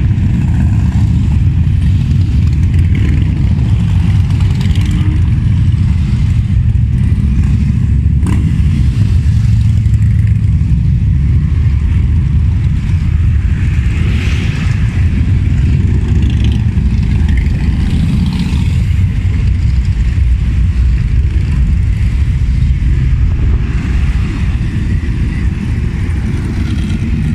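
A steady stream of motorcycles, many of them Harley-Davidson V-twin cruisers, rides past with a loud, continuous low engine rumble.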